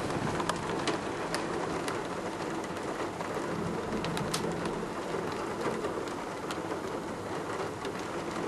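Heavy thunderstorm downpour: a steady hiss of rain with scattered sharp ticks of drops striking the window glass.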